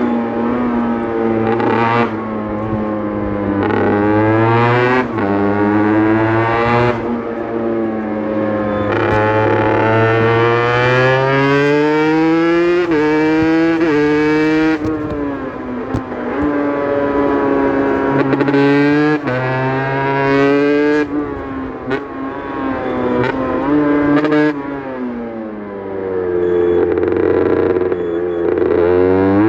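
Aprilia RS 125's single-cylinder two-stroke engine accelerating hard through the gears. Its pitch climbs steadily in each gear and drops sharply at each of about a dozen shifts. About four seconds from the end it eases off, with the pitch falling, then pulls hard again.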